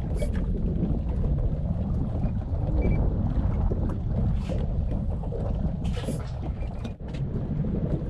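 Steady low rumble of wind and water around a small fishing boat at sea, with a few brief clicks and knocks from gear being handled on board.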